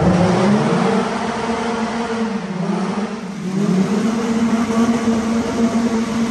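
Twin-engine Honda Civic's engines running hard at high revs, the pitch dipping briefly about two and a half seconds in, then climbing back and holding steady.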